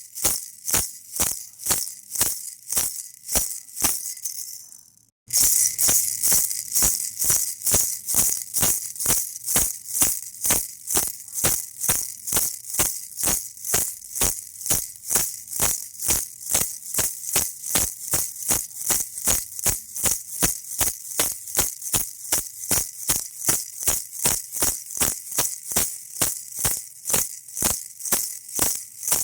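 Baby rattle shaken in a steady rhythm, about three shakes a second, each a bright rattle of beads. The shaking fades and cuts out about five seconds in, then starts again louder and carries on evenly.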